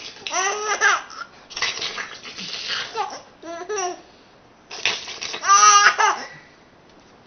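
A baby laughing in short bursts, three times, each right after a man makes a breathy, hissing funny noise at her; the last laugh is the loudest.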